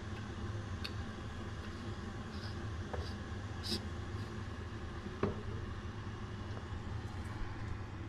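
Steady low room hum with a few faint, light clicks and taps as a metal hand coffee grinder and glasses are handled on a counter.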